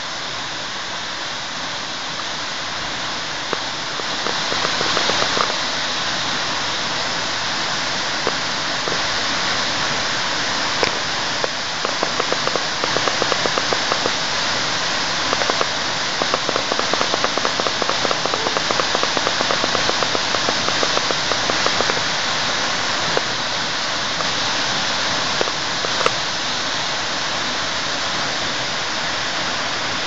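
Waterfall pouring into its plunge pool: a steady, close rush of falling water that grows a little louder about four seconds in, with many small sharp ticks through the middle.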